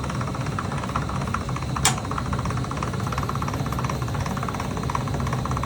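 Steady motor-like running noise with a sharp click about two seconds in.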